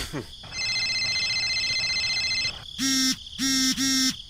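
Cartoon sound effects: a steady high electronic tone for about two seconds, then four short, low honks in quick succession.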